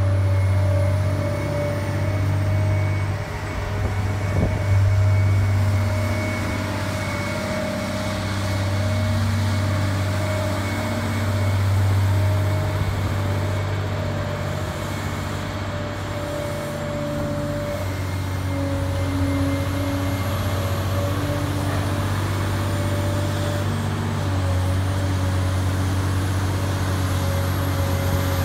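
Caterpillar 385C L ME hydraulic excavator running, its diesel engine and hydraulics working as the boom and bucket are moved. A steady whine sits over the engine's deep hum, and the level swells and eases a little with the work.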